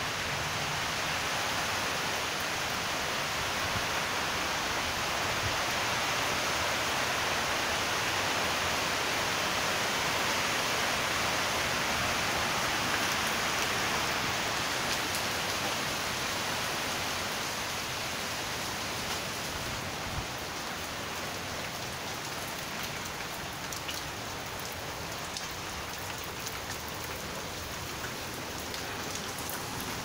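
Heavy storm rain pouring onto paving and garden, a steady hiss that eases a little about halfway through. Near the end, scattered close drops tap sharply.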